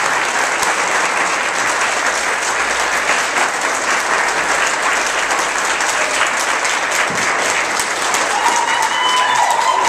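Small audience applauding steadily, with voices starting to cheer and whoop near the end.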